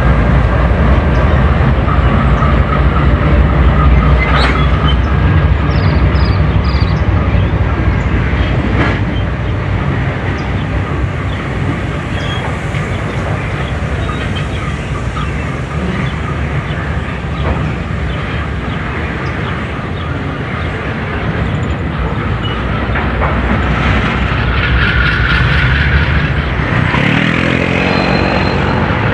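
Diesel freight locomotives passing close by with a heavy, steady engine rumble, followed by the freight wagons rolling past. The rumble is loudest for the first ten seconds or so, eases as the locomotives move off, and swells again near the end, with a few thin squeals from the wheels.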